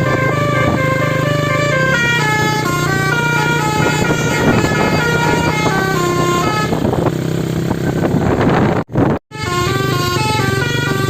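Bus telolet horn, a multi-trumpet musical air horn, playing a melody of short stepped notes over a steady low hum. It cuts out sharply for a moment about nine seconds in, then carries on.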